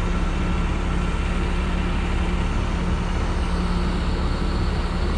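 Heavy diesel truck engine running steadily under load, a constant low drone with no change in pitch.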